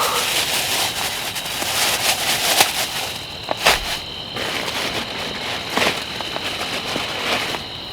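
Dense crackling and rustling with scattered sharp taps and one soft low thump, thinning out after about three seconds, when a steady high insect trill comes in.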